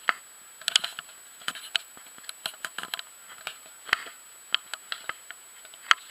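Irregular sharp clicks and taps, about fifteen of them at uneven intervals, over quiet background noise.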